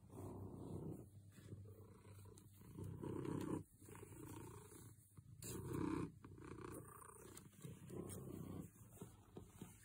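Domestic tabby cat purring contentedly while being stroked: a low rumbling purr that swells and fades with each breath, roughly once a second.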